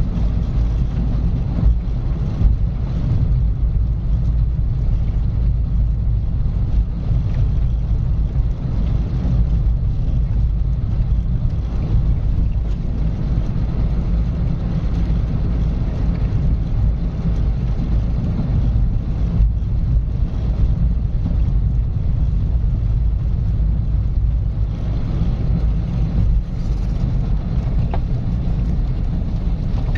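A car driving steadily along a road: a constant low rumble of engine and tyre noise with no change in speed.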